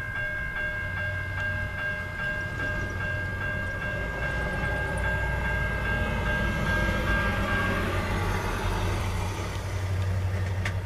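Diesel locomotive engines rumble steadily and grow louder as a four-unit Norfolk Southern light engine move led by an EMD GP40-2 approaches. Over the first eight seconds a steady high ringing tone with faint regular strikes sounds above the rumble, then fades.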